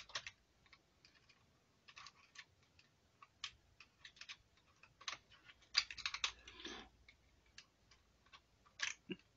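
Faint, scattered small clicks and taps of a metal awl working in the servo steering linkage's adjuster on a 1:18 scale RC truck, with a denser run of clicks about six seconds in and another near the end.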